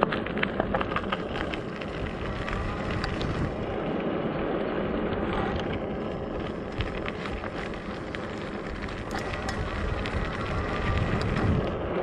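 Ecotric 20-inch e-bike rolling over bumpy pavement: a steady rush of wind on the microphone and tyre noise, with frequent small rattles and clicks as the bike jolts over the bumps.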